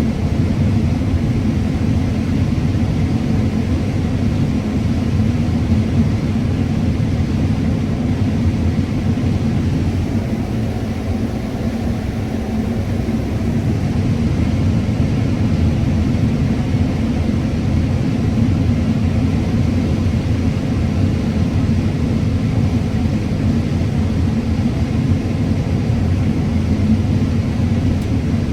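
John Deere combine running steadily while harvesting corn, heard from inside the cab: a steady low rumble of engine and threshing machinery, easing slightly for a couple of seconds about eleven seconds in.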